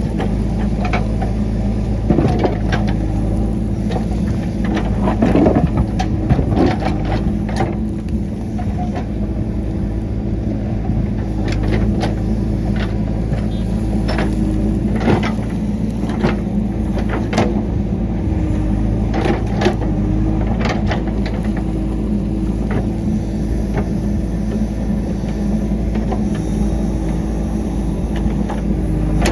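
JCB 3DX backhoe loader's diesel engine running steadily while working, with frequent irregular clanks and knocks.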